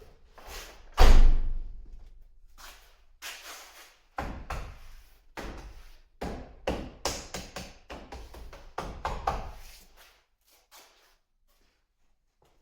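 A series of irregular knocks, thuds and clatter, the loudest a heavy thump about a second in, thinning out and stopping near the end.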